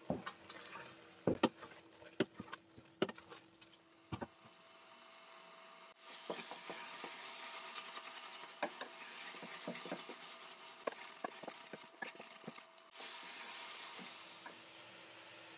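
Wooden spoon stirring grated carrots in a steel pot, knocking and scraping against the pot, with many sharp knocks in the first few seconds and scattered ones after. From about six seconds in, the carrot mixture sizzles with a steady hiss as it fries down.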